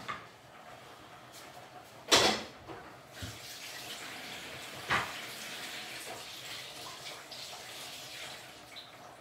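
Kitchen tap running into a sink, a steady rush of water that starts about three seconds in. A sharp knock about two seconds in is the loudest sound, with a lighter knock about five seconds in.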